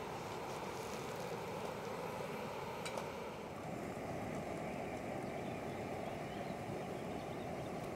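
Optimus Polaris multi-fuel camping stove burning steadily under a pot, a steady rushing roar, with a brief click about three seconds in.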